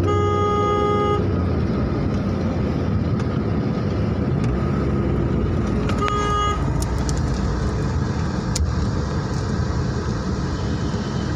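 A car horn sounds twice: once for about a second at the start and again briefly about six seconds in. Beneath it runs the steady engine and road noise of a car driving along, heard from inside the cabin.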